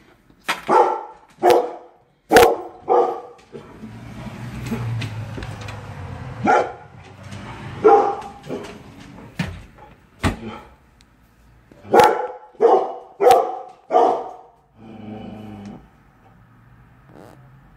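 A dog barking: a dozen or so short, loud barks, some coming in quick runs of two or three, with pauses of a few seconds between them.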